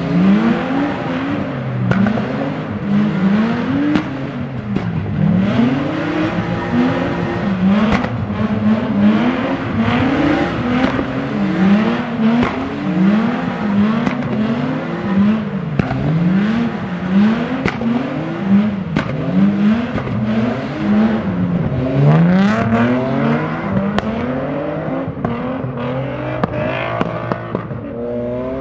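Car engines revving hard during tandem drifting, pitch climbing and dropping over and over in quick pulses, with tyre noise underneath.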